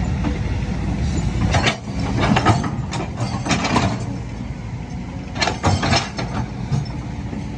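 Kobelco hydraulic excavators' diesel engines running steadily, with several short bursts of metallic clanking and knocking as the bucket and arm work in the clay.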